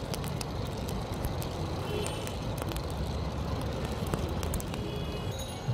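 Street noise with a steady traffic rumble, a few short high beeps, and the crackle of a charcoal fire roasting a corn cob.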